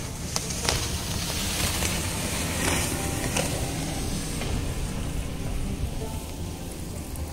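Wind and water rushing past a small sailing yacht under way on choppy water: a steady hiss with a low rumble underneath and a few faint clicks.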